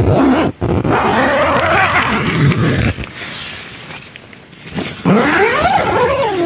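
Nylon tent zipper being pulled shut, a rasping slide, then about five seconds in an animal-like howl that rises and falls in pitch.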